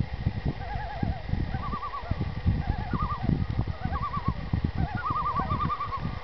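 Common loons giving overlapping tremolo calls: short, rapidly quavering phrases at several pitches, so more than one bird is calling at once. A low, uneven noise runs underneath.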